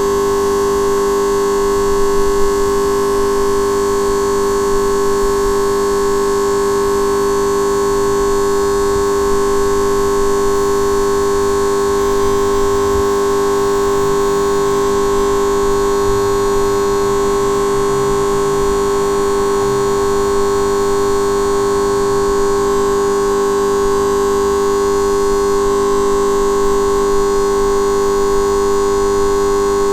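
Traffic light's electric buzz: a loud, steady hum of several fixed tones held together without any change.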